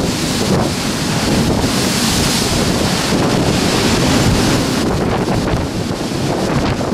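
Storm-force typhoon wind buffeting the microphone, with heavy waves surging at the pier. A stronger gust builds about a second and a half in and eases about five seconds in.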